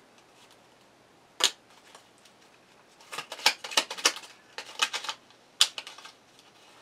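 Tarot cards being shuffled and dealt by hand: a sharp card snap about a second and a half in, a run of quick crisp card clicks in the middle, and another sharp snap near the end.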